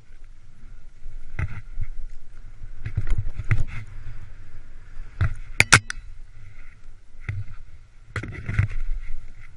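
Skis running through deep fresh snow, a steady rush of snow and air noise broken by a series of sharp knocks and scrapes. The sharpest cluster of clicks comes about five and a half seconds in.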